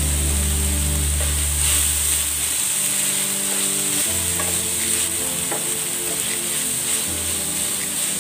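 Minced beef and onions sizzling in a nonstick frying pan, with a spatula stirring and scraping through them a few times in the middle. Low background music with sustained notes runs underneath.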